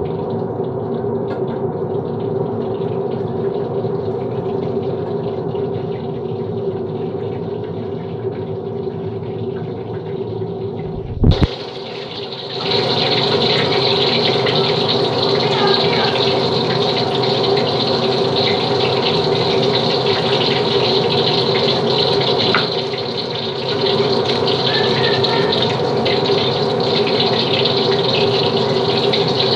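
Potato fries sizzling steadily as they deep-fry in hot oil in a wok on a gas burner, with a steady hum under the sizzle. After a brief knock a little past the middle, the sizzling grows louder and brighter.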